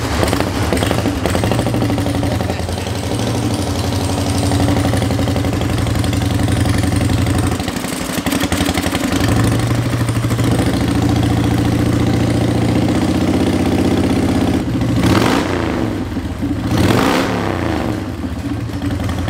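2003 Harley-Davidson Fat Boy's carbureted V-twin running just after its first start in two to three years, with engine noise that the mechanic thinks is probably the compensator and hopes is not the balancers. The engine dips briefly about eight seconds in, and its revs are blipped up and back down twice near the end.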